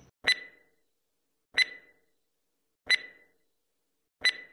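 Countdown timer sound effect: four short, sharp ticks, each with a brief high ring, evenly spaced about one and a third seconds apart.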